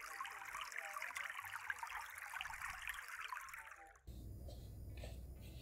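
Steady trickling water in a small stone-rimmed garden pond. It cuts off abruptly about four seconds in, leaving a faint low hum.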